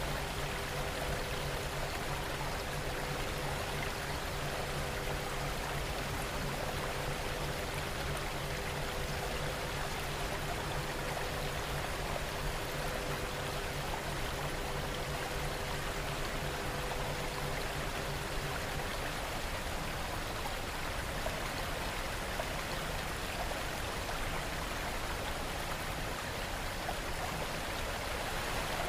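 Steady rain noise, an even unbroken hiss. Faint low steady tones sit underneath it and stop about two-thirds of the way through.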